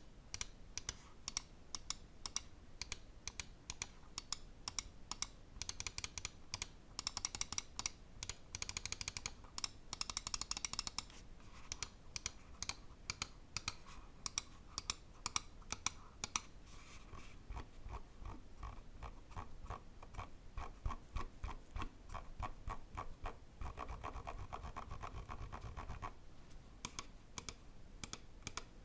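Pulsar Xlite V3 Mini gaming mouse clicking: sharp single clicks and quick runs of clicks. Past the middle comes a denser, duller stretch of rapid ticking lasting about nine seconds, then a few separate clicks again.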